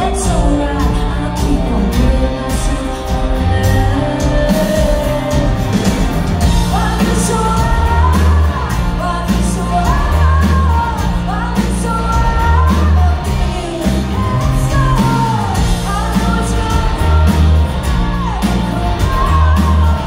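Live rock band playing, heard from the audience: a woman singing lead over acoustic and electric guitars, bass and drums, in a large hall.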